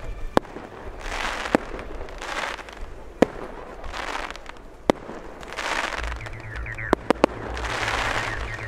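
Aerial fireworks shells bursting overhead: seven sharp bangs, at first about every second and a half, then three in quick succession about seven seconds in, with stretches of hiss in between.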